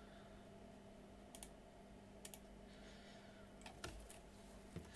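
Near silence with a low steady hum, broken by a handful of faint computer keyboard and mouse clicks about a second apart.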